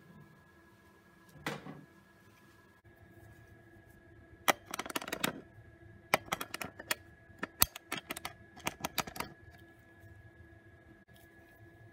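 Magnetic tracing board: a magnetic stylus traced along a letter pulls steel beads up into their holes, each snapping into place with a sharp click. The clicks come in an irregular run of about five seconds starting about four and a half seconds in.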